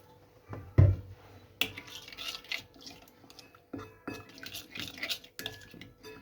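A thump about a second in, then a spoon scraping and clinking against a bowl in repeated short strokes as a wet chermoula marinade is stirred.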